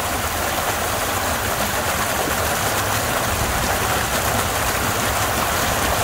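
Water rushing steadily out of a lake's exit pipe, flowing freely after a beaver dam clogging the drain was dug out.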